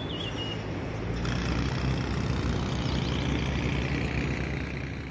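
A vehicle engine running steadily under a wide rushing noise, getting a little louder about a second in.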